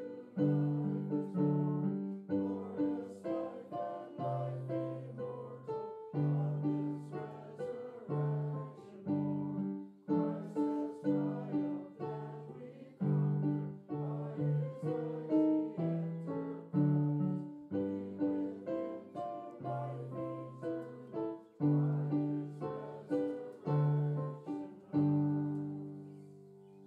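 Yamaha electronic keyboard playing an instrumental piece in a struck, plucked-sounding voice: chords and notes that each die away. It fades out at the end.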